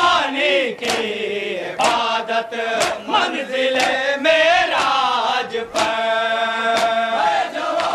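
Men chanting a Shia nauha (mourning lament), a lead voice with the group, kept in time by a sharp collective slap about once a second: chest-beating matam.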